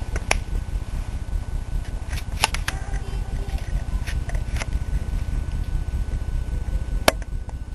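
Low rumbling noise on the camera's microphone, with a few sharp clicks scattered through it, the loudest about two and a half seconds in and near the end.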